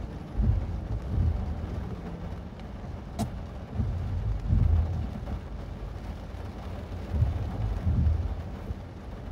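Mazda 3 driving, heard as an uneven low rumble of road and tyre noise, with one sharp click about three seconds in.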